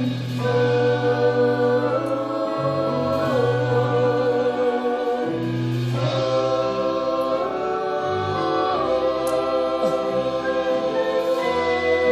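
Musical-theatre song: long held sung notes with a slight vibrato over an accompaniment with a low bass line, the chords changing every couple of seconds.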